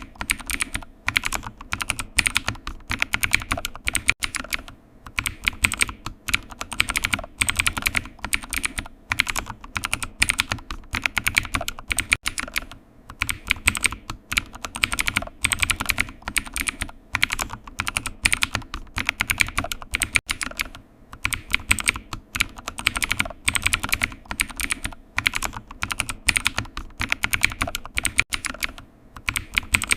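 Computer keyboard typing: quick, irregular runs of key clicks with brief pauses between bursts.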